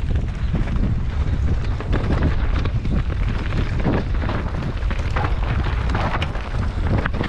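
Wind buffeting the microphone during a fast mountain bike descent, a steady low rumble with frequent clatters and knocks from the bike and tyres over rough, rocky ground.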